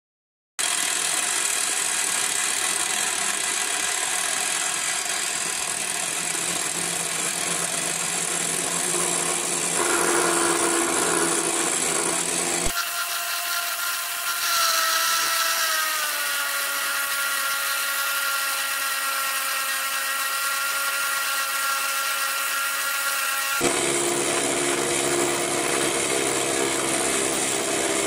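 Parkside direct-drive pillar drill used as a mill, its end mill cutting aluminium with a steady, a bit chattery machining noise. About halfway through, the sound switches abruptly to a steady motor whine of several tones that sags slightly in pitch, then switches back to the cutting noise.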